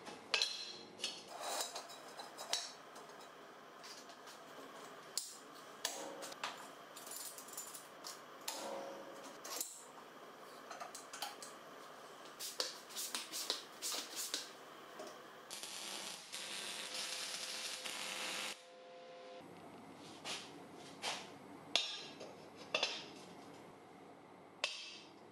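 Square steel tubing and locking clamps clinking and knocking against a perforated steel welding table as the pieces are positioned and clamped. A steady hiss lasts about three seconds in the middle.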